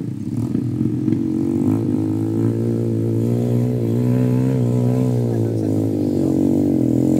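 Two-stroke dirt bike engine labouring up a steep dirt hill climb, its pitch wavering as the rider works the throttle, getting louder as it approaches.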